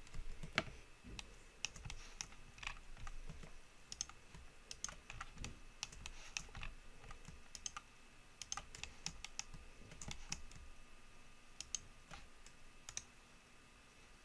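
Faint, irregular clicking of computer keyboard keys and mouse buttons, in scattered bunches of quick clicks.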